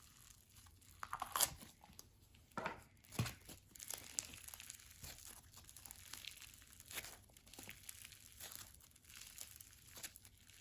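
Slime being stretched and squished by hand: faint, irregular crackles and small pops, the 'sizzly' texture of a fizz slime.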